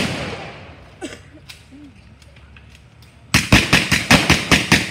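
Blank gunfire from re-enactors' weapons: a couple of faint single shots, then, a little past three seconds in, a rapid, even string of about eight loud shots at about six a second, typical of an automatic weapon.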